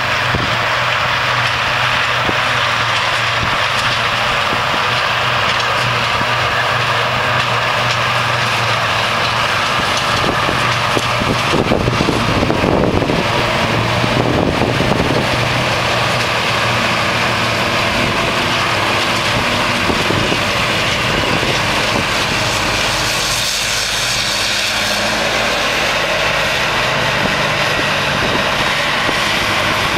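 Steady engine drone of a New Holland self-propelled forage harvester and the tractor running alongside it while chopping grass silage into a trailer, swelling briefly near the middle.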